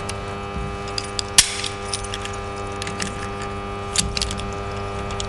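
Light clicks and metallic rattling as a plastic breaker-lockout clip is fitted onto a circuit breaker and a brass padlock is hung through it, the sharpest click about a second and a half in. A steady hum runs underneath.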